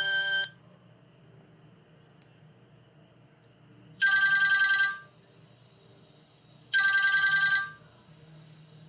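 Nokia 3220 mobile phone playing a ringtone that imitates an old telephone bell: two rapid trilling rings, each just under a second long, about three seconds apart. About half a second in, a held chord from the previous tone cuts off.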